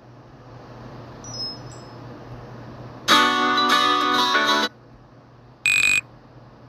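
Nokia C5-00 ringtones played back on a phone: a short melodic phrase of about a second and a half, starting about three seconds in, then a brief single tone of about half a second near the end. Faint hiss fills the gaps.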